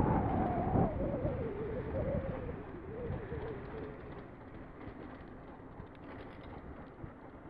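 Rumbling wind noise on a phone microphone carried on a moving bicycle, with a faint wavering tone that slides slowly down in pitch and fades over the first few seconds; the whole sound grows quieter.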